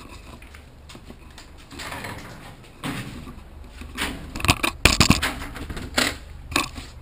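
Screen door and house door being handled: soft shuffling, then a cluster of sharp knocks and clatters about four and a half to five seconds in, with two shorter knocks near the end.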